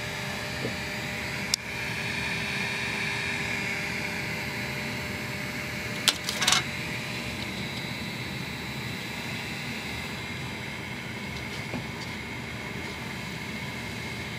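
Steady whir of a small running fan with a few faint high tones in it. A sharp click comes about a second and a half in, and a short cluster of clicks or knocks about six seconds in is the loudest thing.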